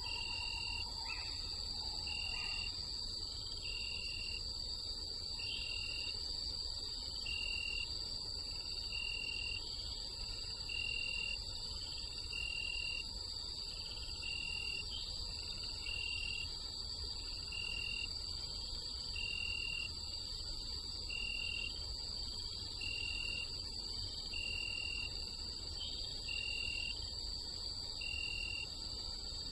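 Night-time forest ambience: insects trilling steadily and high, with a short chirp repeating about every second and a half to two seconds over a low steady rumble.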